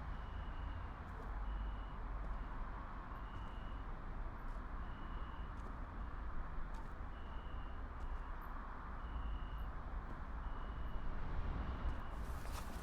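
Steady low background rumble with a faint, short, high-pitched pulse repeating every one to two seconds.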